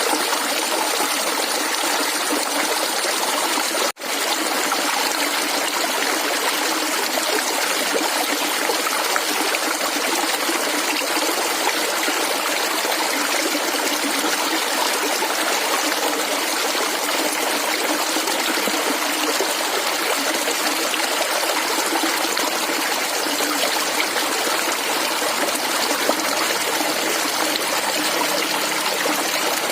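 Flowing water gurgling and trickling steadily. The sound cuts out for an instant about four seconds in.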